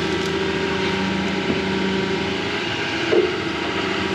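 An engine running at a steady speed, a constant hum with a few steady tones over it and one small knock about three seconds in.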